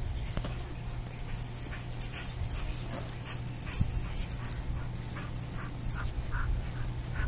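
A dog whimpering, with several short high whines, most of them in the last couple of seconds, over scattered light clicks and a steady low hum.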